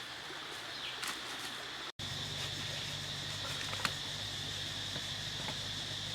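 Forest ambience with a steady high insect drone and scattered light clicks. After a brief cut about two seconds in, a low steady hum joins.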